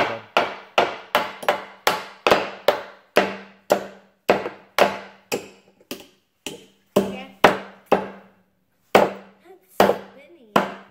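Two claw hammers driving nails into a wooden board: a quick, irregular run of sharp knocks, about two to three a second.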